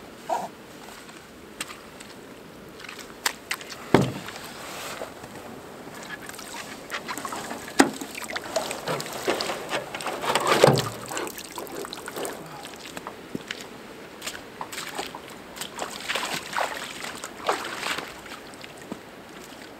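Handling noises as a backpack is shouldered and a canoe is hoisted overhead and carried: knocks and thumps of the canoe hull and gear, the loudest about 4 and 8 seconds in and a cluster near the middle, with rubber boots sloshing in shallow lake water.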